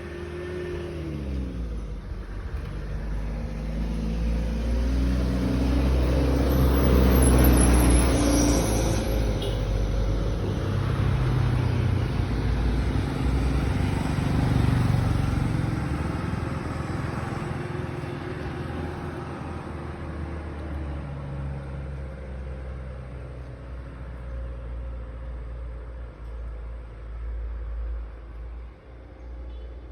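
A motor vehicle's engine running nearby, growing louder over the first several seconds and then slowly fading away.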